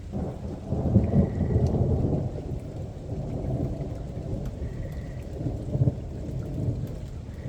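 Thunder rumbling over steady rain: the deep roll builds right away, is loudest from about a second in to two seconds, and keeps rolling with another swell near six seconds.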